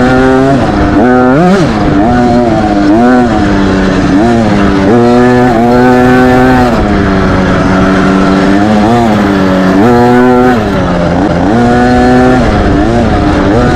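Small dirt bike engine revving up and dropping back again and again as the rider works the throttle along a wooded trail, its pitch rising and falling every second or two.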